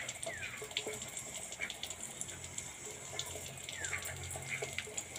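Ducks dabbling and drinking in a shallow bowl of water, their bills making quick irregular splashing clicks. A few short falling chirps come through twice.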